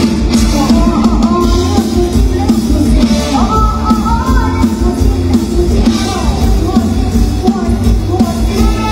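Live Isan mor lam band music over a loud PA, with a steady drum-and-bass beat and a young girl singing into a microphone.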